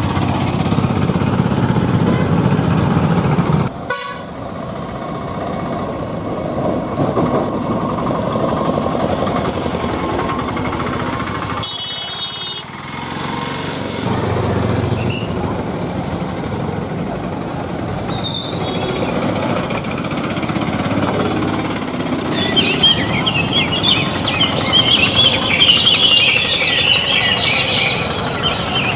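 A motor vehicle running steadily, with a short horn toot about twelve seconds in and chirping over the last several seconds.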